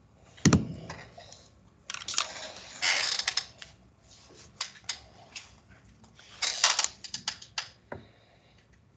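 Clicks and clatter of a computer keyboard and mouse in use, in a few short bursts, with one louder thump about half a second in.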